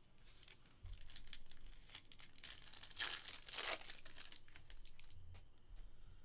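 A foil pack of 2022 Topps Stadium Club Chrome baseball cards being torn open by hand, the wrapper crinkling in short bursts, loudest about three seconds in.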